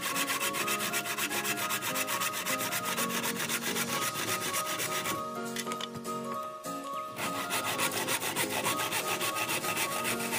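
Handsaw cutting a thin wooden batten with quick, regular back-and-forth strokes. The sawing stops for about two seconds around the middle, then resumes.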